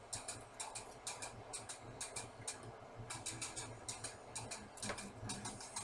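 Kitchen knife striking a cutting board in quick, irregular chopping strokes, several a second.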